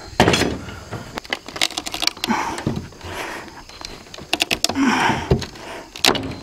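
Hand tools working old wooden roof boards and nails loose: irregular sharp knocks and clicks, a hard knock just after the start, with scraping and creaking of wood in between.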